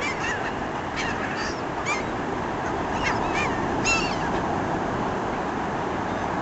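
A flock of sea gulls calling: several short, sharp calls in the first four seconds, then only steady background noise.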